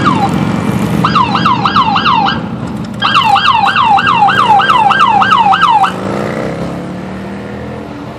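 Police patrol vehicle siren yelping in fast rising-and-falling sweeps, about four a second, in two bursts that stop about two-thirds of the way through. Beneath it, the steady hum of passing vehicle engines, one sliding down in pitch as it goes by.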